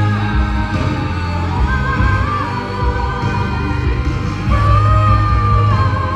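Live band music: deep sustained bass notes under a wavering high melody line, which swells and holds about halfway through.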